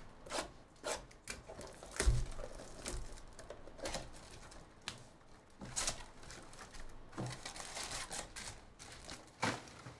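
Cardboard trading-card hobby box being opened by hand and its card packs pulled out: irregular rustling, scraping and light tapping of cardboard and packs, with a dull knock about two seconds in.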